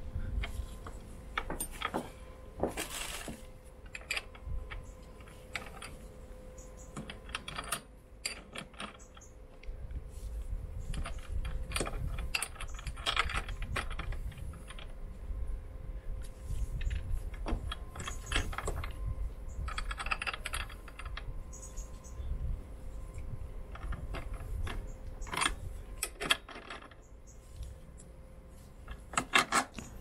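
Scattered metallic clicks and clinks of a box spanner working the rear drive-chain adjuster bolt on a motorcycle swingarm while the chain tension is being set, coming in short clusters, with a faint steady hum underneath.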